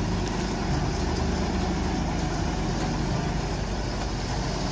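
Hyundai HW160 wheeled excavator's diesel engine running steadily as the machine digs and swings its load.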